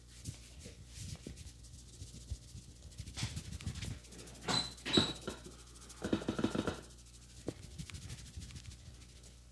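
Rubbing and light tapping of a barber's hands on skin and hair during a head massage, with a short high-pitched sound about halfway through and a louder rough burst of rubbing a second later.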